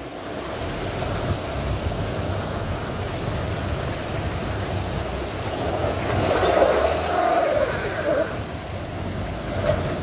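Vehicle engine and body working under load, lurching over a rough, wet dirt track. It gets louder about six seconds in, with a high-pitched squeal that rises and falls for about two seconds.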